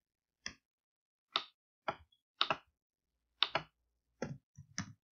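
A computer mouse clicking, about seven short sharp clicks at uneven intervals, a few of them in quick pairs, as items are picked in an on-screen form.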